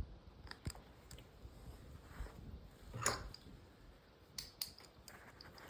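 Faint handling noises of hand bookbinding work on a leather cover: a few light clicks and taps, with a short rustling scrape about three seconds in as the loudest moment.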